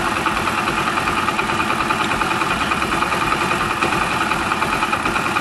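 Hero Honda Splendor's single-cylinder four-stroke engine idling steadily, its idle turned down to just above stalling while the carburettor's air-fuel mixture screw is fine-tuned.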